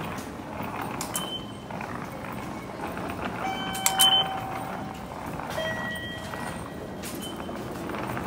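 Automatic ticket gates at a Japanese train station beeping as fare cards are tapped: a short beep about a second in, the loudest chime about four seconds in as the card touches the nearby gate's reader and the fare is deducted, and another gate's beep a couple of seconds later. Steady station crowd noise underneath.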